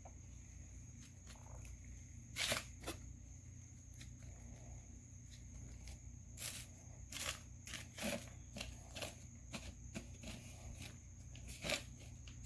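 Hands kneading slime with sand worked into it, making faint, irregular sticky clicks and gritty crackles.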